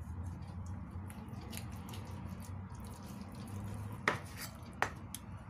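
Faint handling sounds as raw chicken breast is cut with a cleaver on a plastic cutting board, then two sharp knocks of the cleaver against the board about four seconds in, under a steady low hum.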